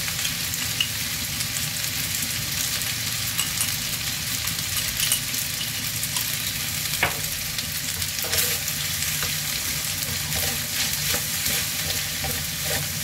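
Pasta and vegetables sizzling steadily in a frying pan over a gas flame. Short knocks and scrapes of a wooden spatula come in, more of them in the second half as the pasta is stirred.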